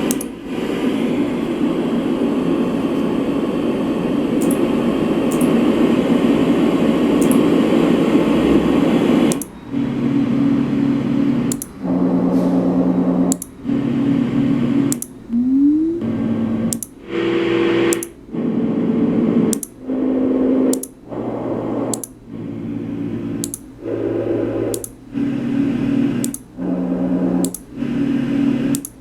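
LectroFan white noise machine playing a steady rushing noise, then, about a third of the way in, stepping quickly through its different fan and noise sounds, each lasting about a second with a brief silence at every switch. Some of the sounds carry a steady low hum, and a short rising tone comes about halfway through and again at the very end.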